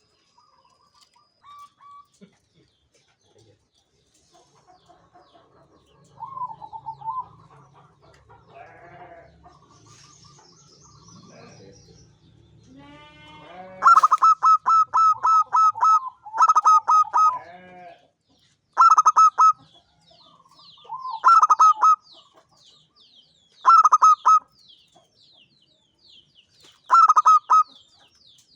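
Zebra dove (perkutut) singing its rapid, staccato cooing song in repeated phrases. The song starts quietly and becomes loud about halfway in, with a phrase every two to three seconds. Faint chirps of other birds can be heard in the background.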